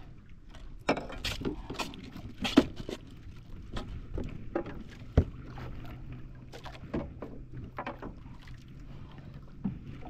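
Irregular knocks and clatters aboard a small fishing boat, the sharpest about two and a half and five seconds in, over a steady low rumble. A faint low hum joins about halfway through.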